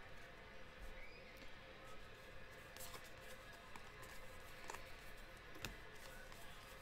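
Faint background music, with a few soft clicks of glossy trading cards being flipped through by hand.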